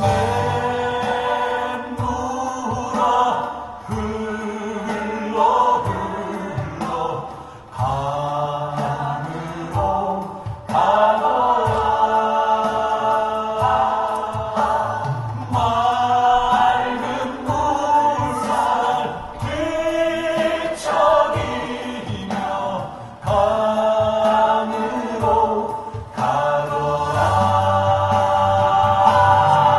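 A choir singing in harmony: several voices in phrases that break off every few seconds, with a sustained low part underneath.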